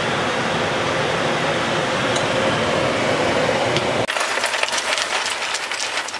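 A steady rushing noise for about four seconds, then ice cubes tipped from a plastic container into a pot of cold water, clinking and clattering in quick irregular ticks.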